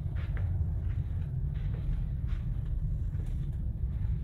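Steady low rumble of a ferry's engines and machinery carried through the hull, with soft footsteps on carpet.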